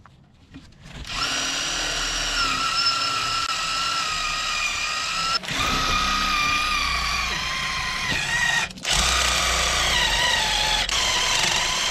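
Cordless drill spinning a brass wire brush against a car's rusty wheel hub to clean off rust, with the brake rotor off. A steady whine starts about a second in and stops twice briefly before running on.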